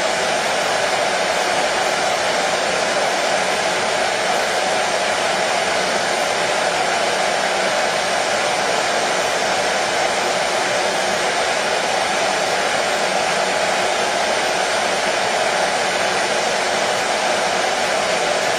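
Hair dryer running steadily: an unbroken airy rush with a hum in it, not changing in pitch or loudness.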